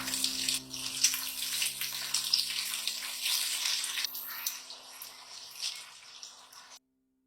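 Steady watery hiss, fading toward the end and cutting off abruptly just before the end, with a faint held note of background music beneath it.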